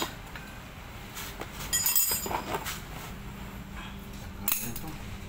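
A few sharp metallic clinks of scooter CVT parts being handled at the exposed variator pulley of a Yamaha Aerox 155 during drive belt removal. The loudest cluster comes about two seconds in, with another clink near the end.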